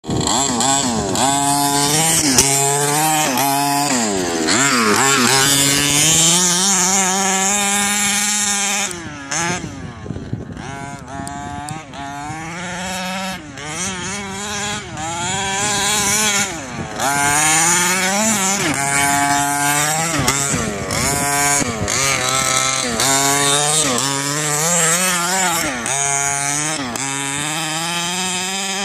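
HPI Baja 5B RC buggy's small two-stroke gasoline engine, revving up and easing off over and over in long rising and falling whines as it is driven over dirt.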